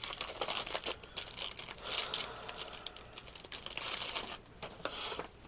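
Packaging and paper sheets crinkling and rustling in irregular bursts as a pack of craft paper is handled.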